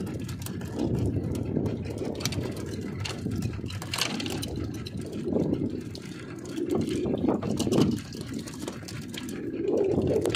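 Choppy sea water sloshing and slapping against the hull of a small boat. The sound comes in uneven swells every second or two.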